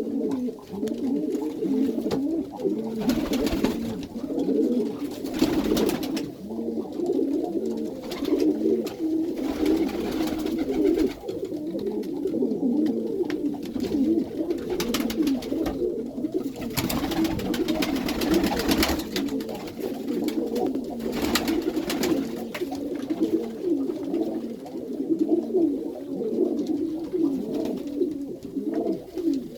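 Many Iranian pigeons cooing together inside a loft: a dense, continuous chorus of overlapping low coos, broken every few seconds by short rustling noises.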